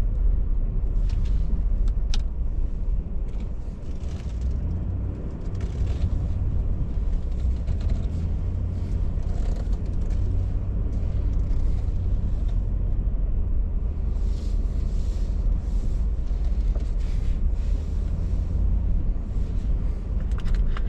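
A vehicle driving, giving a steady low rumble of engine and road noise with scattered light clicks and rattles.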